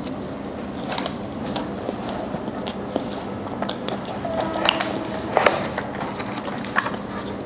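Small clicks and crinkles of a clear plastic takeaway tray being handled and a flaky aloo paratha being torn apart by hand, with a few soft eating noises close to a clip-on mic.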